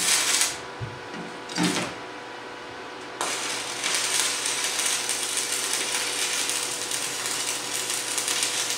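DC stick-welding arc on a 1/8-inch 7014 rod at 90 amps from a Forney Easy Weld 180 ST. Two short sputters as the arc is struck. About three seconds in, it settles into a steady crackle like frying bacon, which is the sound of a good weld. It cuts off sharply near the end.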